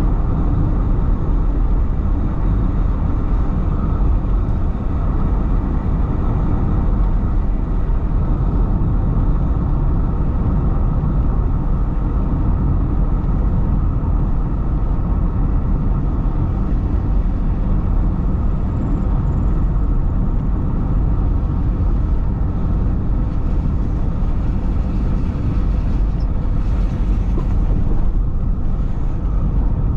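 Car on the move: a steady low rumble of engine and tyres on the road, with a brief higher hiss near the end.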